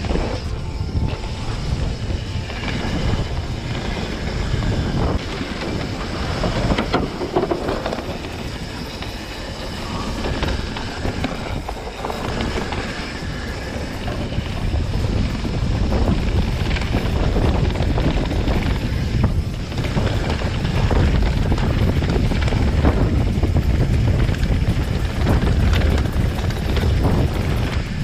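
Mountain bike ridden fast down a dry dirt trail: wind rumbling on the camera microphone over tyres rolling on dirt, with rattling and knocking from the bike over bumps. It gets louder about halfway through.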